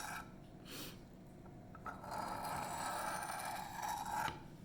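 Emerson Mini A100's 154CM steel blade drawn lightly across a coarse sharpening stone, flipped to knock off the burr. It makes a gritty scrape: a short stroke about a second in, then a long stroke of about two seconds that stops sharply near the end.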